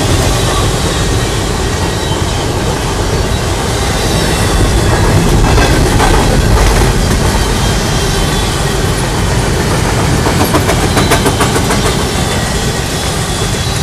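Empty intermodal well cars of a freight train rolling past, wheels clicking over the rail joints over a steady rumble, with a run of sharp clicks about ten seconds in.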